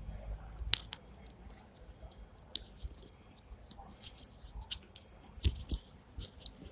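Hong Kong double-decker tram standing at a stop: scattered light clicks and knocks in the driver's cab, with a low rumble in the first second.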